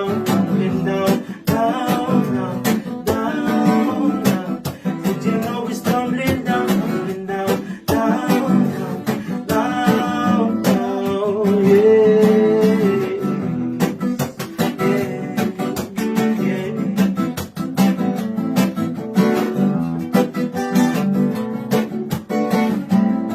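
Music: a song's instrumental passage with a strummed acoustic guitar over a steady beat.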